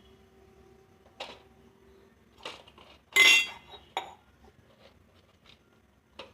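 Metal kitchen utensils clinking and knocking against a cooking pot: about five separate clinks, the loudest one a little past three seconds in with a brief metallic ring.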